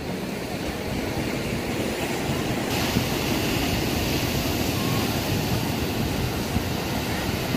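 Steady rushing noise of small waves washing on a sandy beach, mixed with the low rumble of wind on the microphone; the hiss grows brighter about three seconds in.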